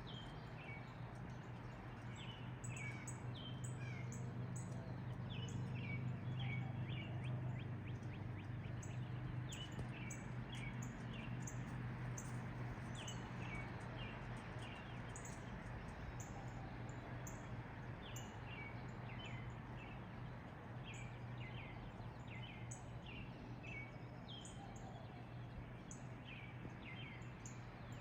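Birds chirping in many short, repeated calls throughout, over a steady low hum that swells a few seconds in and then eases off.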